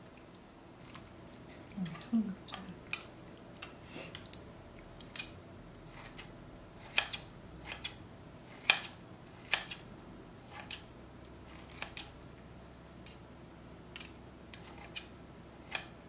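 Kitchen scissors snipping braised kimchi and meat in a steel pot, with tongs holding the pieces: irregular sharp metal snips and clicks, roughly one a second.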